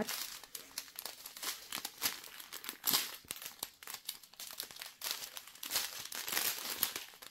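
Small clear plastic zip bags of round diamond-painting drills crinkling as a strip of them is handled and turned over, in uneven crackly bursts.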